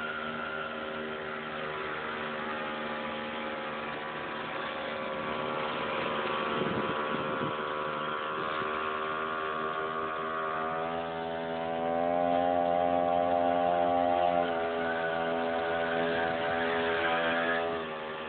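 Motorized skateboard's motor running under way as one steady drone. It climbs in pitch and gets louder about two-thirds through, eases a little, then drops back just before the end.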